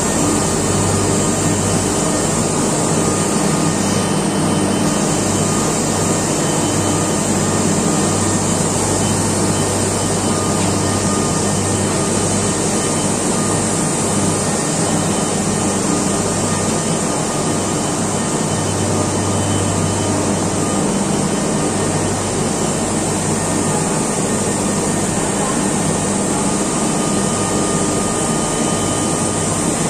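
Loud, steady machinery noise of a power-plant turbine hall: a constant hiss with a few steady high whining tones over a low hum that swells and fades.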